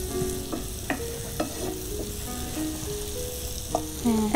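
Chopped onion sizzling in butter in a nonstick frying pan, with a wooden spatula scraping the pan and tapping it a few times as it stirs.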